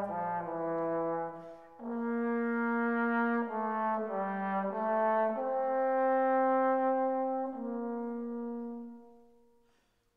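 Background music: a slow brass melody in long held notes that fades away near the end.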